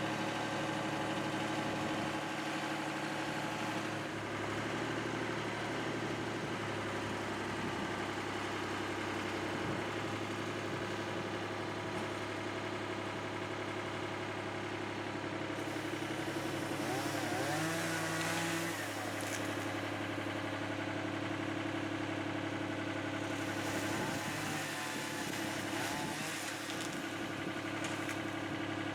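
An engine idling steadily, with a short rise in pitch about two-thirds of the way through. Fainter wavering higher sounds come and go over the engine twice.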